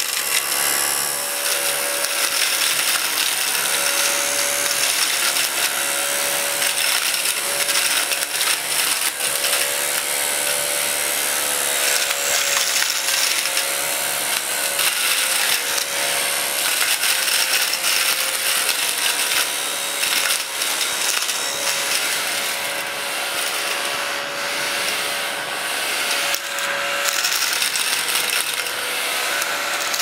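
1980s Command battery-operated mini vacuum cleaner running steadily, its small motor whining at a pitch that wavers a little. Its bristle brushes scrape over the wooden table as it picks up small bits of paper, with many little clicks.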